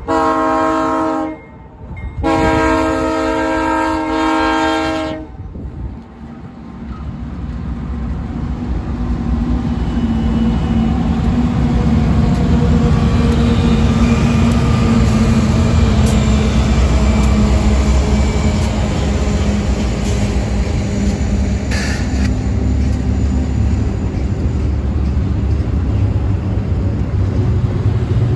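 A BNSF GE diesel locomotive's air horn sounds a multi-note chord in two blasts, a short one and then one about three seconds long. The locomotives' diesel engines then pass with a rising, steady rumble, followed by the clatter and rolling noise of a double-stack intermodal freight train going by.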